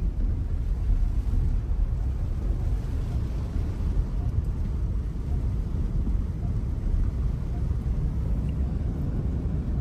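Car driving through floodwater in heavy rain, heard from inside the cabin: a steady low rumble of tyres pushing through water, with rain on the car.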